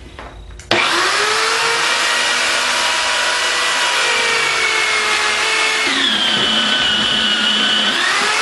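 Electric wire stripping machine (SDT Tools) switched on about a second in and running steadily with a motor whine while it slits the insulation off a vacuum cleaner power cord. The whine shifts in pitch about six seconds in and again near the end.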